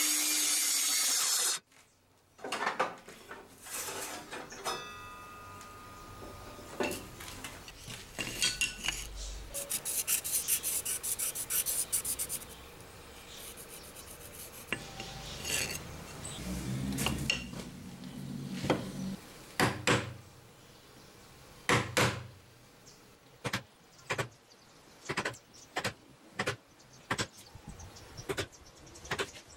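A bench table saw cutting a block of wood, cutting off sharply about a second and a half in. Then come rubbing, clicks and knocks of wood and tools handled on a workbench. Near the end there is a run of sharp taps about once a second, a hammer striking a chisel.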